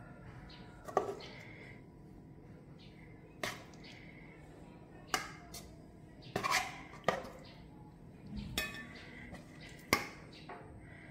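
Metal tongs clinking against a wire oven rack as chicken pieces are set down on it: several sharp, separate clinks a second or two apart.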